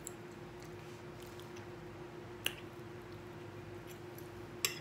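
Quiet eating sounds: faint chewing over a steady low hum, with a sharp click about halfway through and a metal fork clicking against a ceramic plate near the end.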